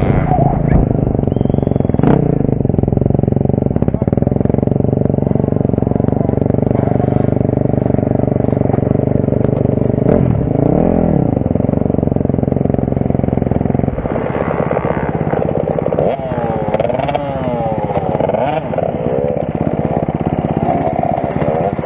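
Motocross bike engines running: a steady idle, a brief rev about halfway through, then in the last third engines revving up and down repeatedly.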